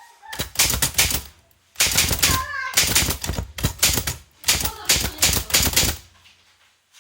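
Typewriter keys striking in quick runs of clatter, three bursts of typing with short pauses between. A brief high-pitched voice-like sound cuts in about two and a half seconds in.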